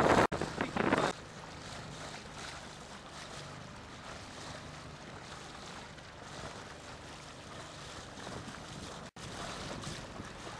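Small boat under way: a steady wash of water and wind with a low engine hum. Loud wind buffeting on the microphone in the first second, then the sound settles. The sound cuts out for an instant twice.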